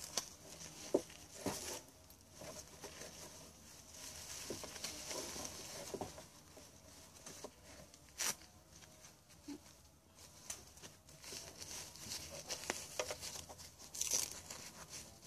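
Preemie Huggies disposable nappy being handled and fastened: crinkling and rustling of its plastic, with a few light knocks and a short tearing sound near the end as a fastening tab is pulled open and pressed down.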